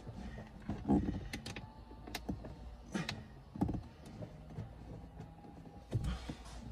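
Plastic clicks and knocks from the dashboard's instrument-cluster trim of a BMW X5 E70 as a digital cluster is pressed and seated into it by hand, about half a dozen irregular hits over a faint steady low hum.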